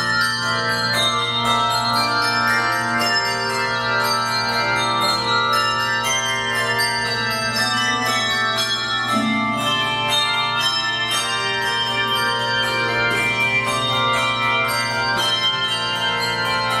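Handbell choir playing: many handbells struck in a steady rhythm, their notes ringing on and overlapping into chords.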